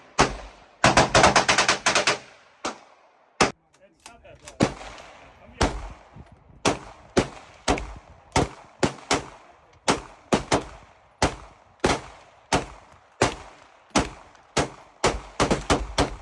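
Gunfire: a quick rapid string of shots about a second in, then single shots at an uneven pace of roughly one to two a second, each a sharp crack with an echoing tail.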